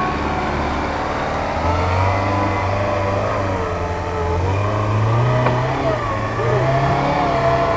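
Off-road 4x4's engine revving up and down as it works through a steep hillside section, the revs climbing about two seconds in and again around five seconds.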